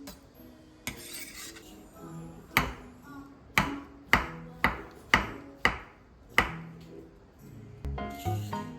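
Light background music with a series of sharp knocks, about eight, mostly around two a second, each ringing briefly.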